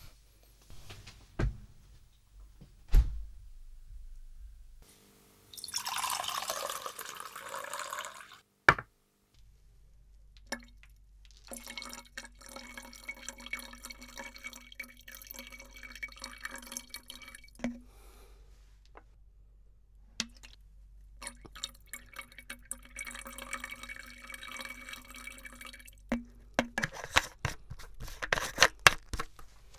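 Water pouring and dripping: a few separate drips, a short pour of about three seconds, then a longer run of trickling with many small drips and clicks.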